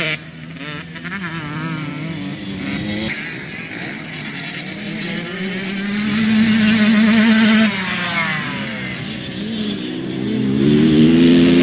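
Motocross bike engine revving hard around a dirt track, its pitch climbing and falling as the rider works the throttle and gears. It holds a high steady note, drops off sharply about two-thirds of the way through, then climbs again near the end.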